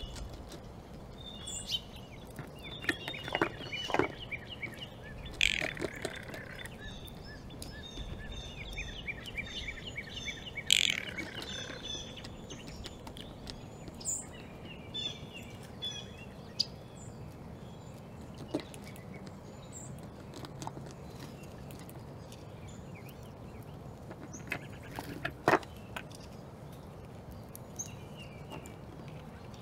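Small songbirds chirping in quick series, busiest in the first dozen seconds and sparser after, over a steady low background noise. A few sharp clicks and knocks stand out, the loudest about eleven seconds in and again near twenty-five seconds.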